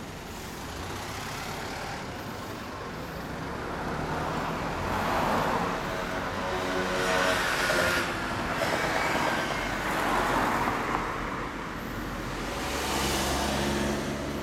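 2005 Yamaha YZF-R1's inline-four engine idling and then being revved several times through a BrightLogic aftermarket silencer, the pitch rising and falling with each blip of the throttle.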